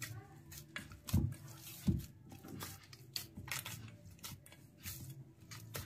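Wheat-flour dough being kneaded by hand in a stainless steel bowl: soft, irregular squishing and light knocks, with two louder thumps about one and two seconds in. A faint steady hum runs underneath.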